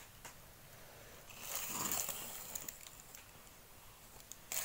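Paper and card being handled, with a soft rustle lasting about a second from about a second and a half in and a light tap near the end.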